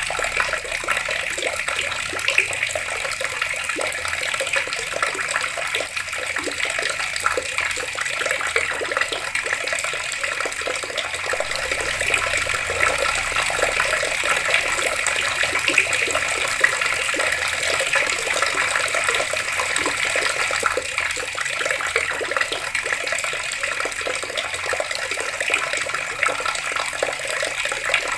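Water running steadily from taps and splashing, a continuous even hiss full of small crackling drips.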